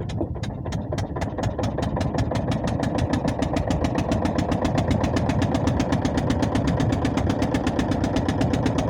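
Ferry boat's engine starting up and gathering speed. Its regular knocking beats quicken from about two a second to six or more a second, then run steadily.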